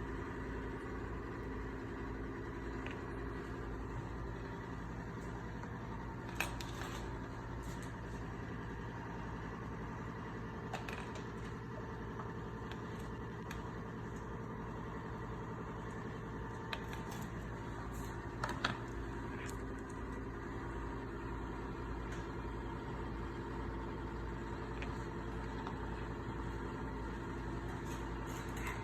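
A steady mechanical hum, with a few light clicks and taps of kitchen utensils against a pan now and then. The loudest is a quick pair of taps about two-thirds of the way through.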